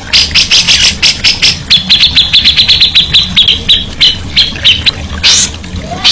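Songbird song: rapid repeated sharp notes, several a second, running into a fast trill on one steady pitch for about three seconds, then scattered notes, over a low steady hum.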